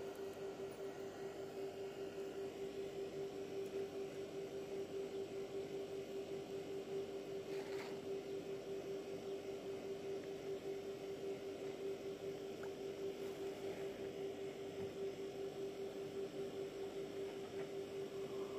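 A steady hum at one pitch with a slight rapid pulse, and a faint click about eight seconds in.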